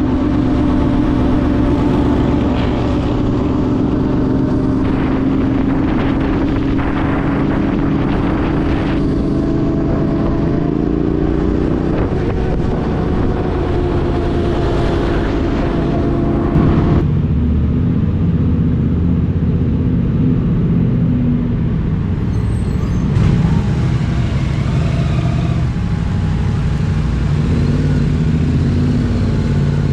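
Yamaha Ténéré 700's parallel-twin engine running under way at fairly steady revs; the note rises slightly, then drops to a lower pitch about seventeen seconds in.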